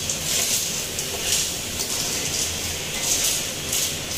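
Snails in their shells frying in hot oil in a wok, sizzling steadily with louder bursts as they are stirred with a spatula, over a low steady hum.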